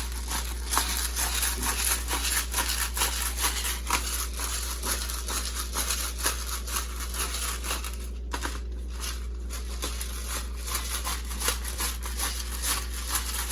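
Food-preparation handling sounds: a stream of irregular small clicks and rustles, over a steady low hum.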